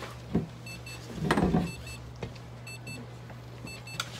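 An electronic device beeping a short double beep about once a second over a steady low hum. A dull knock sounds about a third of a second in, and a louder brief muffled thump about a second and a half in.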